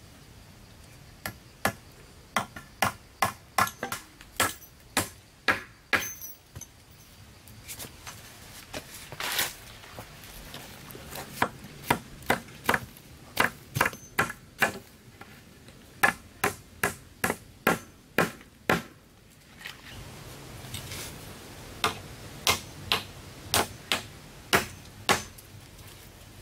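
A hand tool striking repeatedly in three runs of quick, even blows, about two to three a second, with short pauses between the runs.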